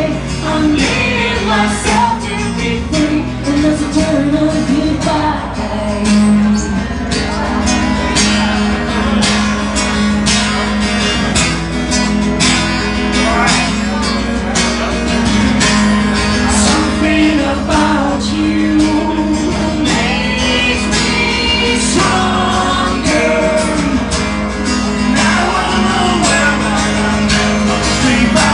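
Live acoustic rock performance: two acoustic guitars strummed under a woman and a man singing into microphones, heard through the venue's sound system.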